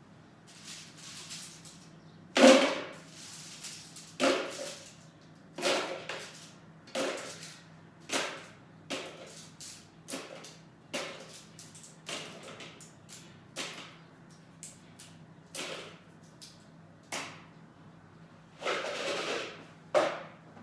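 A series of about fifteen sharp knocks or slaps, roughly one a second, each dying away quickly, with a longer rustling noise near the end.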